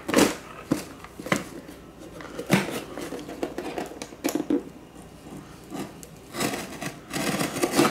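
Utility knife slicing and scraping through the packing tape on a cardboard box, with scattered clicks and knocks of the box and knife on a stone countertop. The blade is worn ragged.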